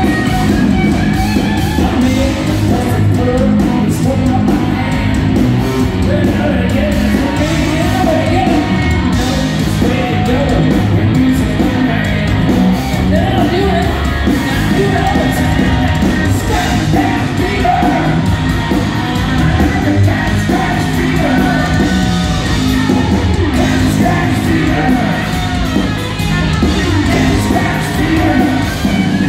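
Live hard rock band playing loud, with distorted hollow-body electric guitar, bass and drums under sung and shouted vocals, picked up by a phone among the audience in a large hall.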